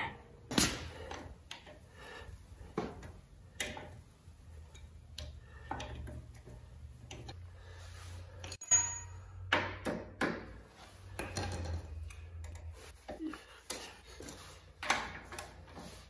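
Scattered light metallic clicks and knocks from a motorcycle jack and hand tools being worked, with one sharp click and a brief ping about halfway through.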